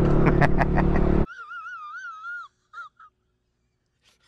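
Motorcycle engine and road noise while riding, cut off suddenly about a second in. A high, wavering wail follows, its pitch warbling up and down in short broken pieces, from an inserted film clip.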